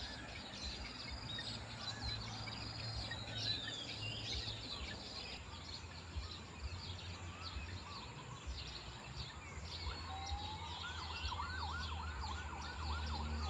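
Birds chirping and whistling, many short high calls overlapping. From about ten seconds in, a lower rising tone turns into a fast up-and-down warble, about four swoops a second.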